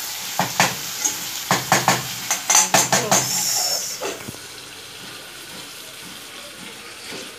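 Wooden spoon stirring beef and chopped tomatoes in a sizzling saucepan, with quick scraping knocks against the pan for about four seconds. A lid then goes on with a clack, and a quieter steady sizzle carries on under it.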